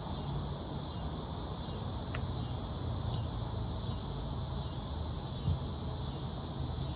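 Steady high-pitched chirring of crickets over a constant low rumble, with a faint click about two seconds in.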